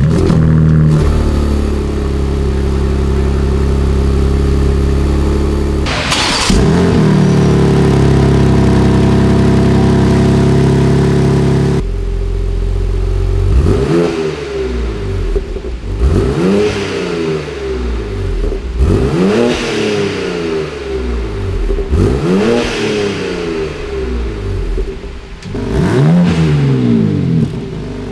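BMW G82 M4 Competition's S58 3.0-litre twin-turbo inline-six running through an Akrapovic Evolution titanium exhaust. It starts with a flare and settles to a high idle, with one short blip about six seconds in. It drops to a lower idle before six free revs, each rising and falling, roughly every two and a half seconds.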